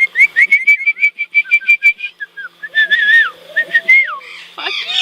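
Parrot whistling: a fast run of short, high chirps for about two seconds, then slurred gliding whistles with a falling whistle near the end, and sharp clicks scattered through.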